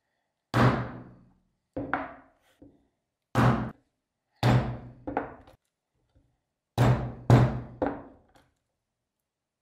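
Mallet blows on a metal hand punch driven through leather into a work board: about nine strikes in uneven groups, several in quick pairs, with silence between them.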